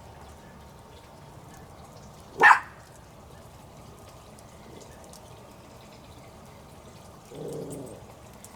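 A dog barks once, sharply, about two and a half seconds in, over a low steady background. Near the end there is a brief, low vocal sound.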